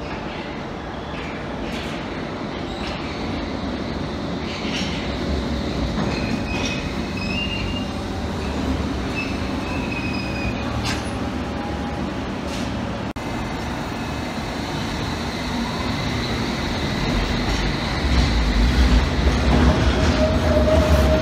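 London Underground S-stock train running through the station with a steady rumble of wheels on rail. There are brief high wheel squeals in the middle. Near the end the rumble and a motor whine build louder as a train runs alongside the platform.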